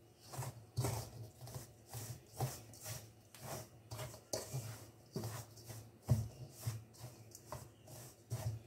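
Wooden spoon stirring stiff, crumbly rock cake dough in a stainless steel bowl: irregular scraping and knocking strokes, roughly two a second, as milk is worked in towards a cookie-dough texture.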